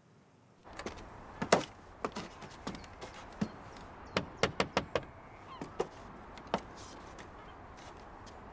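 Door knocking: a scatter of sharp knocks and clunks, including a quick run of about five knocks about four seconds in, over a steady background hiss.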